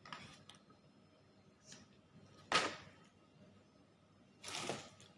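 Takeout food packaging being handled: a short sharp scrape about two and a half seconds in and a half-second rustle near the end, over quiet room tone.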